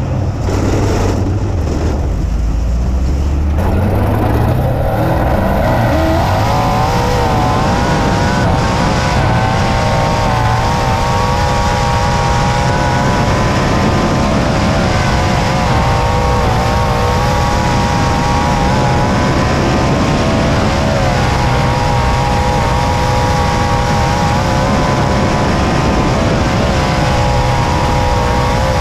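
Winged dirt-track sprint car's V8 engine heard from on board. It builds up over the first few seconds, then runs hard at high revs, its pitch wavering up and down as the throttle rises and falls around the track, over a heavy rushing noise.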